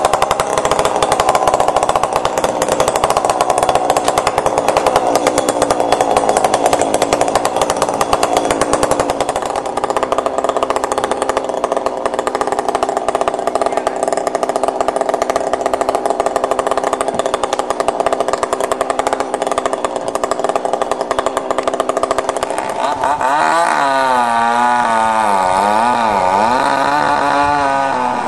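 Gas chainsaw running at high speed and cutting into an alder tree. About 23 seconds in, the engine speed drops and swings up and down as the throttle is eased and blipped.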